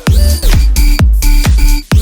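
Electronic dance music with a fast, heavy kick-drum beat and deep bass.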